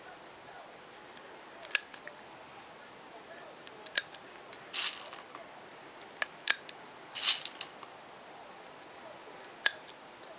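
Sharp plastic clicks and brief rattles from handling a small spring-powered airsoft pistol and loading BBs into its magazine. About five single clicks come a second or more apart, with two short rattles in between.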